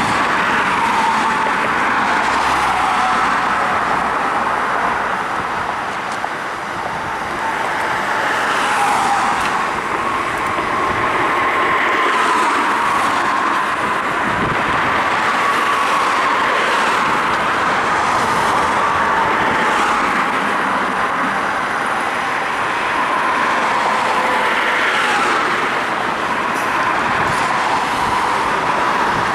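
Road traffic: cars passing one after another, a steady hum of tyres and engines that swells as each goes by, with a faint steady high tone underneath.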